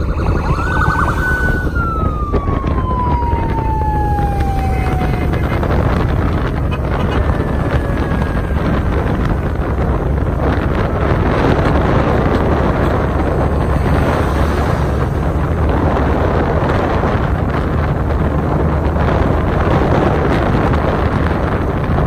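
Wind buffeting the microphone on a moving vehicle, a steady low rumble. Near the start a siren gives a short wavering wail, then a tone sliding steadily down over about four seconds; a fainter falling tone follows around eight seconds in.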